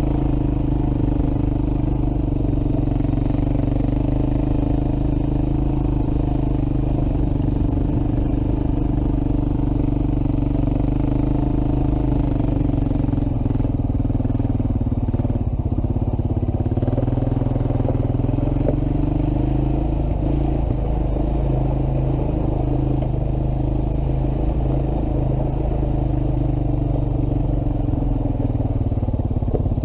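ATV engine running steadily as the quad is ridden, its pitch wavering a little about two-thirds of the way through.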